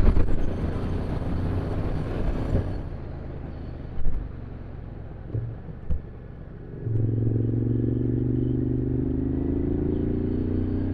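Motorcycle engine heard from on the bike, running with wind noise. It eases off about three seconds in, with a few short knocks. From about seven seconds in it pulls again, its pitch rising slowly as it accelerates.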